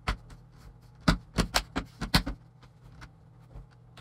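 Plastic LCD bezel of a Dell Latitude E5570 laptop being pressed onto the screen lid, its clips snapping into place. There is a sharp click right at the start, then a quick run of six or so clicks about a second in.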